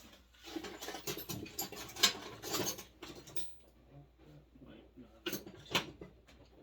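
Small metal hand tools clinking and rattling as someone rummages through them looking for a tool, with a couple of sharper clicks near the end.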